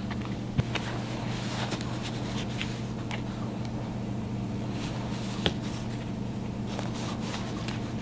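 Wire-cutter pliers working at the metal top stop of a jean zipper: a few faint scattered metal clicks, with one sharper click about five and a half seconds in, over a steady low hum.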